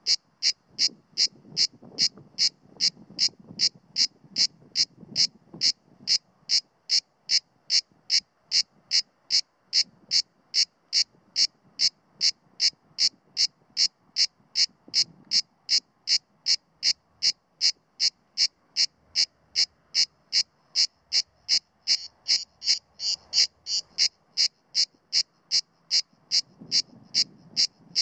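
Male Mediterranean cicada (Cicada orni) singing: an even train of short, high-pitched pulses, about two and a half a second, crowding closer together for a couple of seconds about two-thirds through. It is not singing at full power, holding back while on alert.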